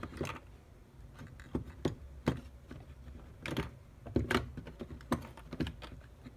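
Hard plastic case of a Fluke 8060A multimeter being handled and pried open by hand: a series of irregular sharp clicks and taps, a dozen or so, the loudest around the middle.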